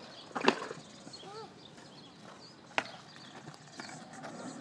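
Skateboard rolling on a concrete path, its wheels clacking sharply twice over joints in the path, about half a second in and again near three seconds in. A few faint chirp-like calls sound in the background.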